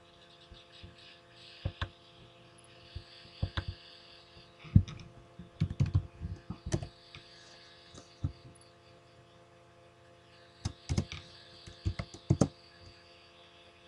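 Laptop keyboard keys tapped in short, irregular clusters as a web address is typed, over a steady faint electrical hum.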